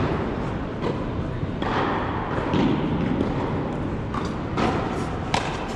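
Tennis ball knocking off rackets and the court, several sharp knocks echoing in a large indoor hall. The sharpest knock comes near the end.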